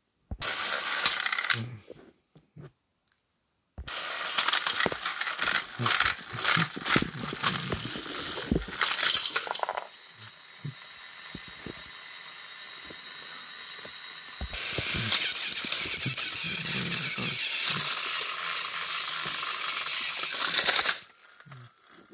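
Plastic toy trains and parts clattering and clicking as they are handled, with a short quiet gap. About ten seconds in, a steady whirring noise takes over, gets slowly louder and stops suddenly near the end.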